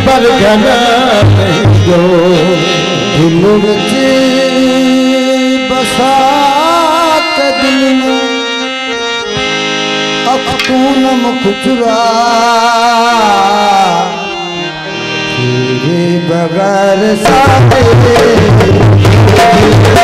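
Live folk music: tabla drumming under a wavering melody line. The music drops in the middle and swells again with heavy tabla strokes near the end.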